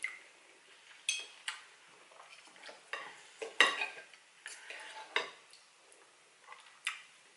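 A metal knife and fork clink and scrape against a ceramic plate while cutting into a stuffed pepper. There is a run of separate sharp clinks and short scrapes, loudest a little after three and a half seconds in.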